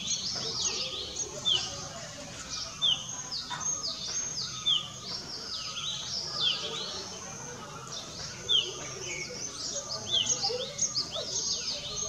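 Several small birds chirping busily, a dense run of quick overlapping notes that slide down in pitch.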